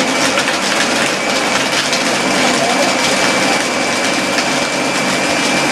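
Countertop blender running steadily, blending a milkshake, with a constant high whine over the motor noise.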